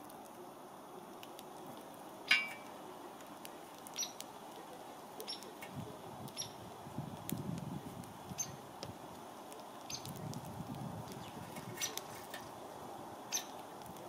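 House sparrow pecking seed from a metal feeder tray: scattered light clicks and taps about once a second, with one louder tap about two seconds in. A low rumble swells twice in the middle.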